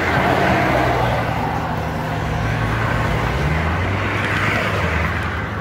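Road traffic passing: a vehicle engine's low steady hum, with road noise that swells and fades twice.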